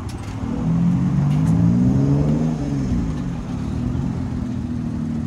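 A car engine running close by, its pitch sliding up and down about a second in, then holding steady.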